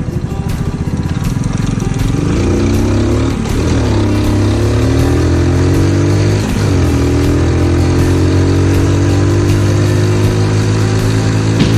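Honda Super Cub 50's single-cylinder four-stroke engine, bored up to 75cc, pulling away from low revs and accelerating through the gears: the pitch rises, drops at shifts about three and a half and six and a half seconds in, then climbs again and holds steady while riding.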